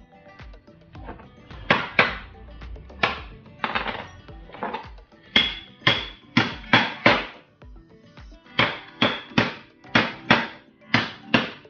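Cleaver chopping through eel on a wooden chopping board: about eighteen sharp chops, coming singly and in quick runs of two to four.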